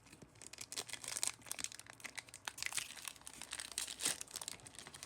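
Foil wrapper of a Pokémon TCG booster pack crinkling and tearing as it is opened by hand, a dense run of irregular crackles.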